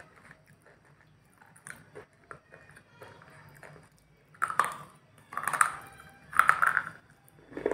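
Person biting and chewing something crisp: four loud crunches about a second apart in the second half, after a few quiet mouth clicks.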